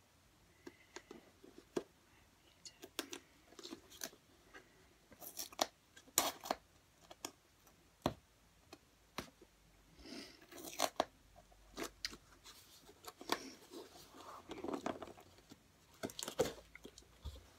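Fingers and fingernails picking and scratching at the packing tape and flaps of a cardboard box, making irregular sharp clicks and short crackles.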